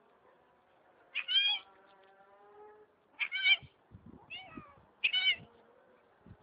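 Cat meowing four times in short, high calls, with a fainter drawn-out mew after the first and a few soft low thumps between the calls.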